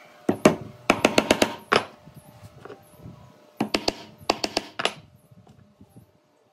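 Quick series of sharp knocks, about six a second, coming in bursts: a couple near the start, a run about a second in, and another run past the middle.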